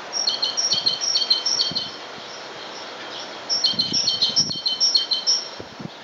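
A small songbird singing two phrases of quickly repeated two-part notes, each stepping from high to a little lower: the first phrase lasts under two seconds, the second begins about halfway through. Behind it runs a steady hiss of background noise.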